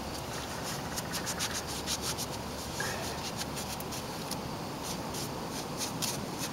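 Cloth rag rubbing over a Model A Ford engine block in quick, uneven scrubbing strokes, wiping off grease with surface-prep solvent before painting.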